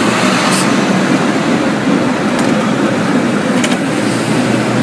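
Steady rumble of a moving San Francisco cable car, with a few short sharp clicks.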